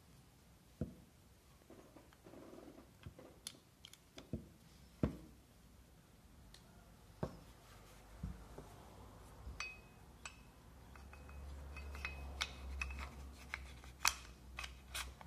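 Retay G17 blank-firing pistol being reassembled by hand: scattered clicks and knocks of its parts, the recoil spring, slide and frame, being handled and fitted together. One of the sharpest clicks comes near the end, as the slide goes onto the frame.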